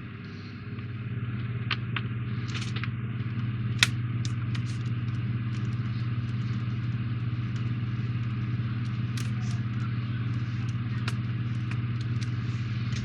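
A steady low hum with scattered small clicks and taps as plastic model parts and screws are handled and fitted; one sharper click about four seconds in.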